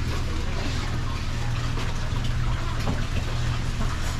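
Steady rush of running water over a continuous low hum.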